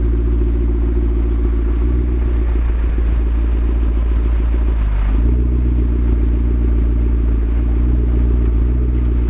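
McLaren MP4-12C's twin-turbocharged V8 idling steadily, its note dipping briefly and picking back up about five seconds in.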